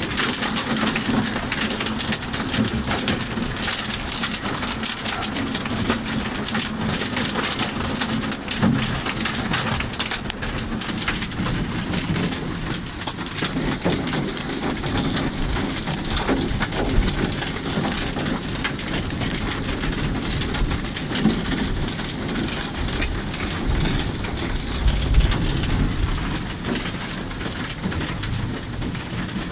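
Heavy rain drumming on the roof and windows of a car, heard from inside the cabin as a dense, steady patter. A louder low rumble of thunder comes near the end.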